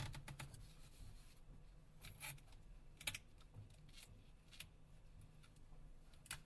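Faint, scattered light clicks and scratches from handling a phone's parts with small tools. The loudest click comes about three seconds in.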